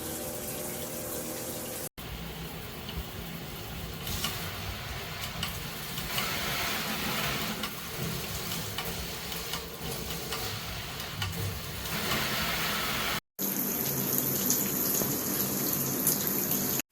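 Water spraying steadily from a handheld shower head, breaking off twice for an instant.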